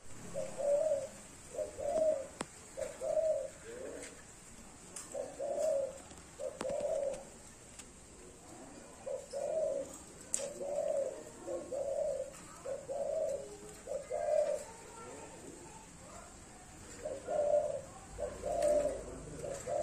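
Caged dove cooing in peak breeding condition: low coos repeated in runs of three to five notes with short pauses between the runs.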